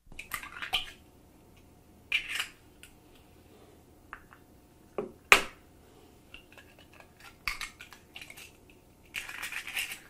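Eggshells cracking and crunching in several short crackly bursts, with two sharp cracks about five seconds in, the second the loudest.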